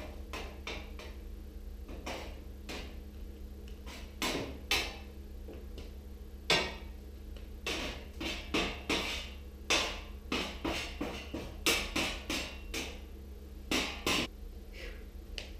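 Irregular clanks and knocks of sheet-metal and glass parts being handled and pulled apart during the dismantling of a gas stove's oven door, a few at first, then coming thick and fast from about four seconds in.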